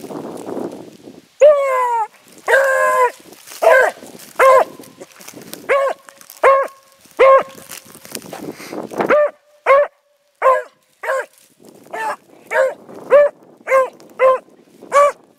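Hound barking on a scent trail, giving tongue: two longer, wavering bays, then a long run of short chop barks that quickens to about two a second.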